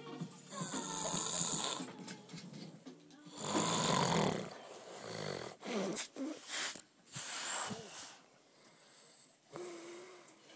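A man snoring heavily in deep sleep: a run of separate long snores, one every two or three seconds.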